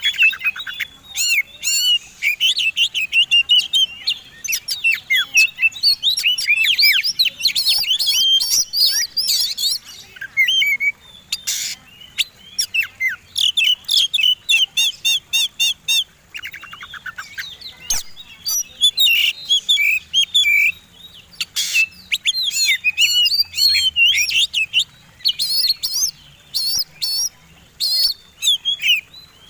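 Oriental magpie-robins (kacer) in full, fast competition song: a dense, varied stream of whistles, chirps and trills. There are a few brief pauses and a run of quickly repeated identical notes partway through.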